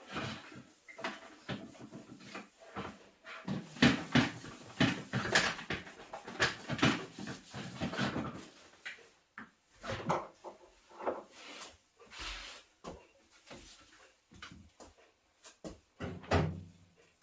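Damp-cleaning sounds: a cloth rubbing over a surface in irregular strokes, with knocks and clatters of objects being handled and set down, busiest in the first half.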